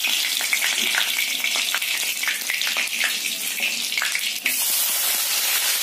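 Dried red chilli and radhuni seeds sizzling in hot mustard oil in a kadai: a steady hiss with frequent small crackles and pops. About four and a half seconds in, the sizzle turns fuller and steadier.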